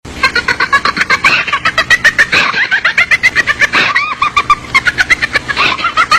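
Creepy doll laugh sound effect: a rapid, high-pitched cackle of quick repeated laugh pulses, about five a second, starting abruptly.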